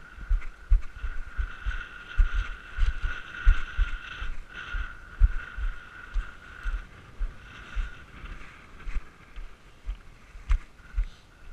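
A drone's propellers whining steadily, fading briefly about seven seconds in, while gusts of wind buffet the microphone in low, uneven rumbles. A single sharp click comes near the end.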